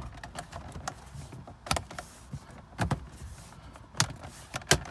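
Plastic radio-surround trim clips snapping into the dashboard as the bezel is pressed home by hand: about four sharp clicks, with lighter taps and rubbing between.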